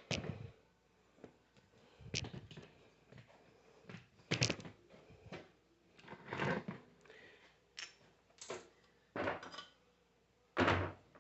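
Irregular knocks, clinks and scrapes of metal parts being handled and set down on a workbench, about a dozen short separate sounds with brief quiet gaps.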